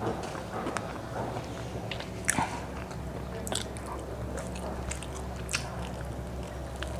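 A person biting into and chewing crispy fried chicken, with scattered crunchy crackles, the loudest about two seconds in, over a steady low hum.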